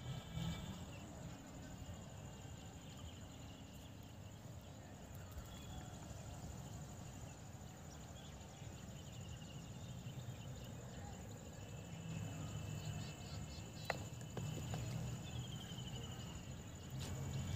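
Quiet open-air ambience: a steady high-pitched insect drone with faint scattered chirps over a low background rumble, and one sharp click about fourteen seconds in.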